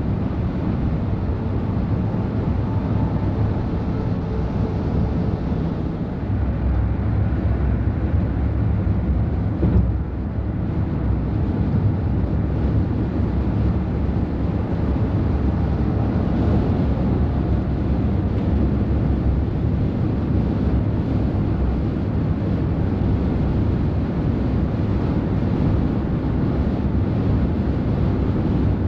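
Heavy truck running on the road: a steady low diesel engine drone with road rumble, and a brief knock about ten seconds in.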